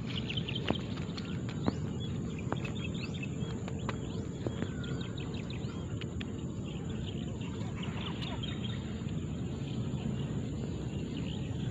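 Outdoor ambience of scattered bird chirps and short whistled calls over a steady low rumble of background noise, with a few faint clicks.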